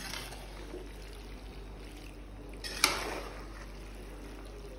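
Metal spoon stirring cooked macaroni in sauce in an aluminium pot: soft wet scraping and shuffling of the pasta, with a sharp clink of the spoon against the pot about three seconds in.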